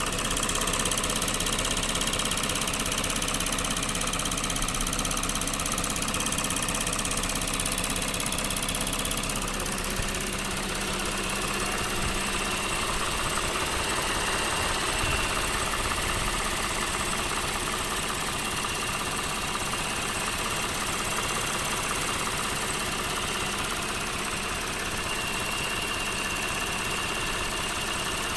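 Lexus GS 300's 3GR-FSE V6 engine idling steadily with a rapid clicking and a whirring. A thin high whine comes up more clearly about halfway through. The noises appeared suddenly at 184,000 km and stay when the engine is warm; the owner ties their onset to water that ran onto the back of the engine.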